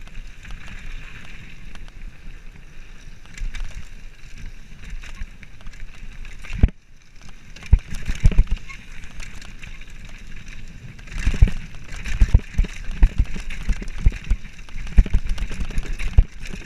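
Mountain bike descending a rough dirt trail: a steady rush of wind and tyres on the microphone, with clattering knocks and rattles from the bike as it hits bumps and rocks. There is a short hush a little before halfway, and the knocks come thick and fast in the second half.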